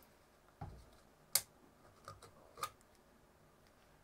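Handling noise from a metal photomultiplier housing held in the hands: a soft thud about half a second in, one sharp click a second later, and a few lighter ticks after.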